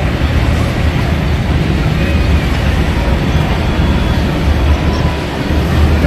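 Steady low rumble of wind on the microphone in an open sky ride gondola moving along its cable, with no distinct knocks or clanks.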